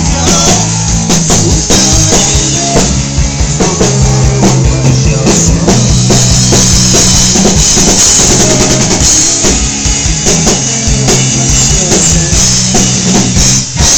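A rock band playing a song at rehearsal: a drum kit pounding out a steady beat over bass and distorted guitar, in a loud, harsh, low-quality recording.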